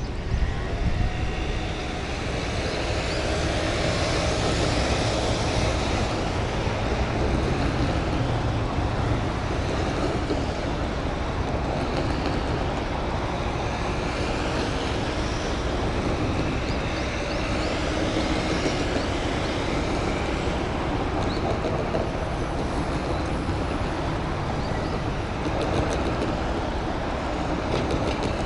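City road traffic: cars and a motor scooter passing across an intersection, their engine and tyre noise swelling and fading every few seconds over a steady low rumble.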